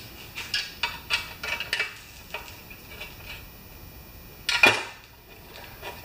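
Light metallic clinks of hand tools and small metal parts being handled on a lawnmower engine: a quick, irregular run of clicks in the first two seconds, then one louder clank about four and a half seconds in.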